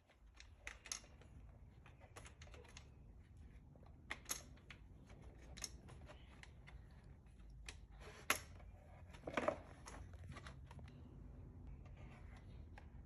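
Scattered light clicks and taps of small plastic game pieces and board being handled, a few sharper ones about 4, 8 and 9 seconds in.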